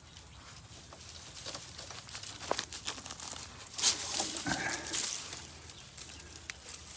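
Dry twigs and dead leaves crackling and rustling as a Thai Ridgeback dog noses and digs through a brush pile, hunting for prey hidden in it. The rustling grows louder about four seconds in.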